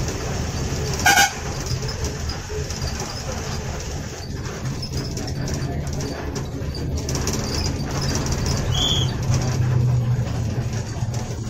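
A state transport bus's diesel engine running as the bus drives along, heard from inside the driver's cab, with a short loud horn blast about a second in. A brief high chirp sounds near the end.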